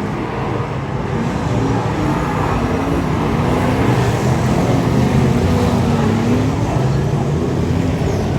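Speedway race cars' engines running on the track, their pitch rising and falling as the drivers accelerate and ease off.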